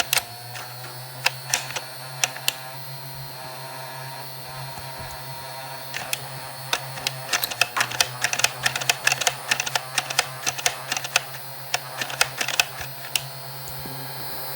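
Nerf blaster shots as sharp clicks and clacks: a few spaced out at first, then a fast run of many from about six seconds in to near the end, over a steady low hum.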